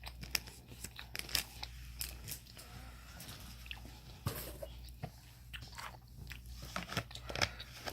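Close-up chewing of a Japanese beef-jerky snack strip: a run of small clicks and crunches at irregular intervals.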